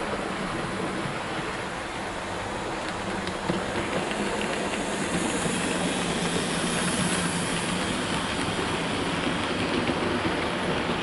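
OO gauge model train running past on the track: the locomotive's motor hums and the wheels rattle over the rails, growing louder from about four seconds in as the engine and its coaches come by, with one small click just before.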